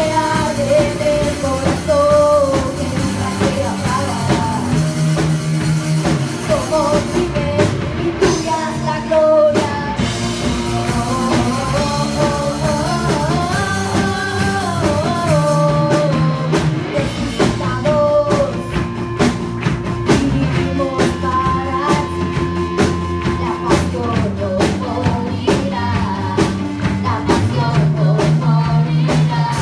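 A live band playing a worship song on drum kit, electric guitar and keyboard, with a woman singing the melody over a steady drum beat.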